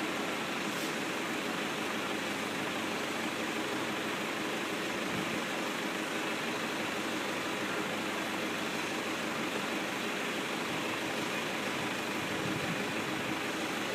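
John Deere farm tractor engine idling steadily, an even low running note under a constant hiss.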